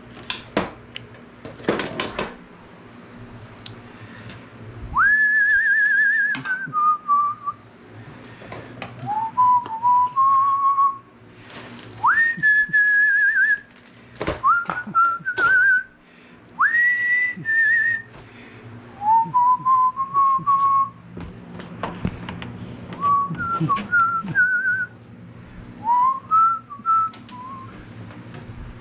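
A person whistling a tune in about eight short phrases, each note sliding up at its start and wavering slightly. Scattered clicks and knocks of hardware being handled sound between the phrases.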